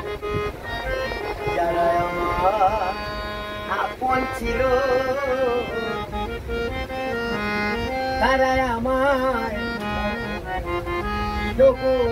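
Hand-pumped harmonium playing steady reedy notes and chords while a man sings over it in Bengali, his voice wavering on long held notes.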